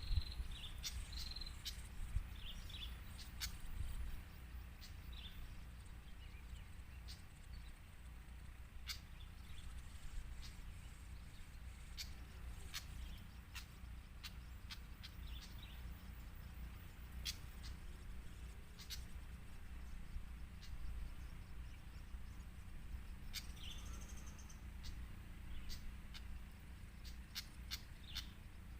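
Small birds chirping in short clusters of high notes, near the start and again near the end, with scattered sharp clicks over a steady low rumble.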